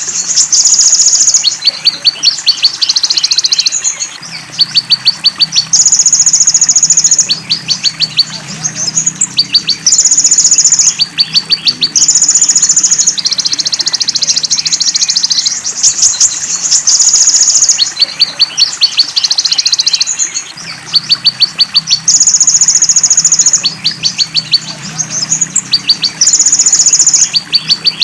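Recorded songbird training track for the konin, Van Hasselt's sunbird, mixed with fill-in calls: high, buzzing trills of about a second alternate with quick runs of sharp chips, about ten a second, over and over. A faint low running-water sound lies underneath as the 'water therapy' backing.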